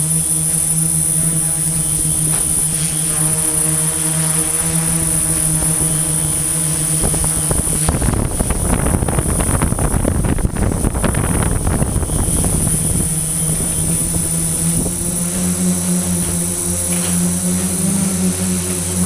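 Construction machinery engine running steadily with a constant hum and a high whine, with a louder, rougher stretch of noise in the middle lasting several seconds.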